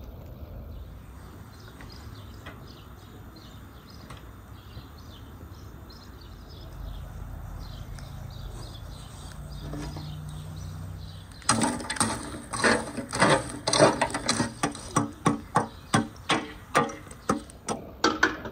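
Metal poker raking and spreading charcoal embers in a steel mangal: a quick run of scraping clatters and knocks, about three a second, starting about two-thirds of the way in.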